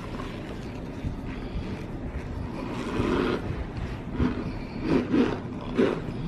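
Raw cornstarch being squeezed by hand and bitten into: soft squeaky crunching. A run of louder crunches starts about three seconds in.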